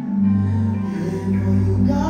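Live gospel worship music: choir and male lead voices singing over a long held low bass note.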